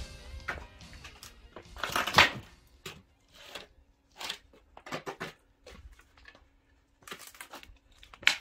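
Firewood being split and handled: a string of sharp, irregular wooden knocks and cracks with quiet gaps between them, the loudest cluster about two seconds in. Music fades out at the very start.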